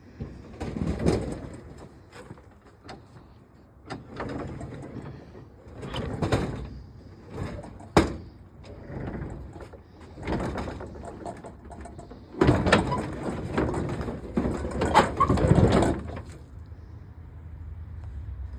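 Scrap being handled and sorted by hand: irregular clunks, rattles and scraping of metal and other junk. There is one sharp knock about eight seconds in and a busier stretch of scraping and clattering near the end.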